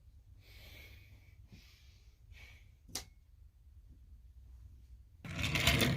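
Quiet room with faint breathy hiss, a single sharp click about three seconds in, then a loud burst of rustling and clattering handling noise near the end.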